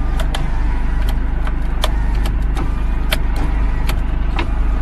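Car engine idling, a loud steady low rumble, with sharp clicks two or three times a second at uneven intervals.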